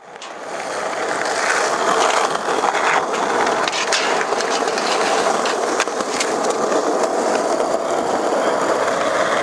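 Skateboard wheels rolling on concrete, with scattered sharp clacks of the board and a grind along a metal flat bar. The sound fades in over the first second.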